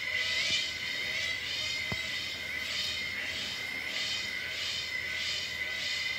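Palawan hornbill calling: a string of repeated calls, about one to two a second, over a steady high tone.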